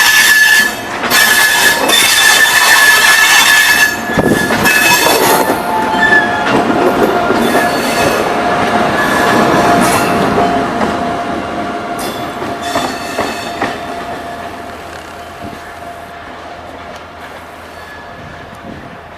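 Rajdhani Express coaches rolling past, their steel wheels squealing in a steady high tone over loud clattering. About six seconds in the squeal shifts to a lower tone, and over the second half the whole sound fades as the train moves away.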